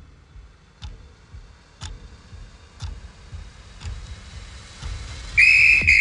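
Faint ticking about once a second, then near the end a loud, shrill, steady whistle blast starts: a general-alert signal whistle.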